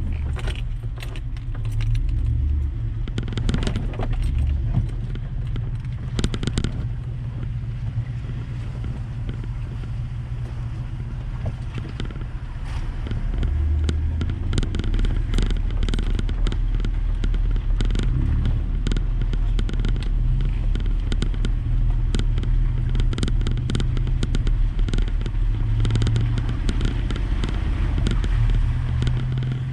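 Toyota 4x4's engine running at low revs as it crawls over a rough trail, with frequent knocks and rattles.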